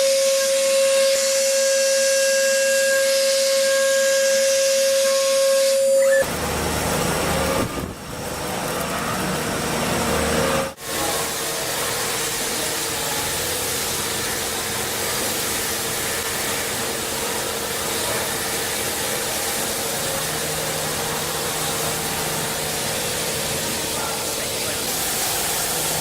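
CNC machine cutting metal: a steady high-pitched whine from the spindle and cut for about six seconds. It then switches abruptly to a steady hiss of machining noise that runs on with two brief dips.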